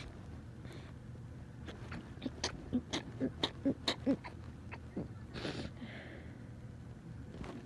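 A person sneezing in a rapid run of about nine short, sharp sneezes in around two seconds, followed by a longer breathy burst. It is an uncontrollable sneezing fit from rhinitis.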